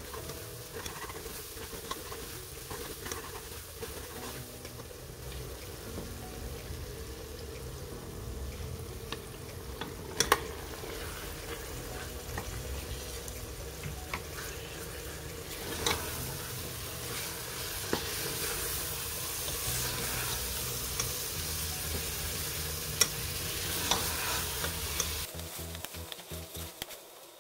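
Aloo keema frying in a pot, sizzling steadily as it is stirred, with a few sharp clinks of the utensil against the pot. The sizzle drops away near the end.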